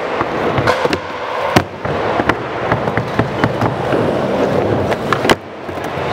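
Skateboard wheels rolling over a concrete skatepark floor with a steady hiss, broken by many sharp clacks and knocks from the board. The loudest clack comes about one and a half seconds in, and another just before the end.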